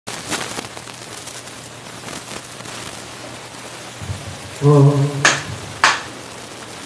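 A steady hiss of background noise, then, about four and a half seconds in, a brief steady-pitched tone followed by two sharp clicks as a hand-held microphone is handled.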